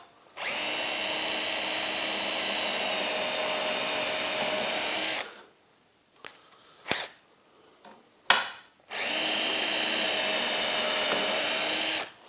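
Cordless drill running steadily in two runs, about five seconds and then about three seconds, boring the two handle holes through a veneered MDF drawer front. A couple of short knocks fall in the pause between the runs.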